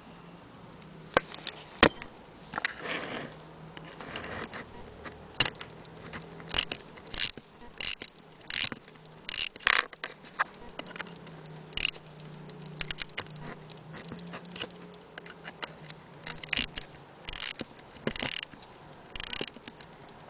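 Irregular metal clicks, clinks and short rattles from an antique French mantel clock being handled, with no steady ticking.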